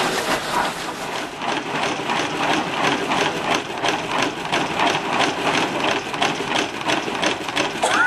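Sawmill driven by a Merlin et Cie Model 12-A portable steam engine, running with an even mechanical beat of about four strokes a second.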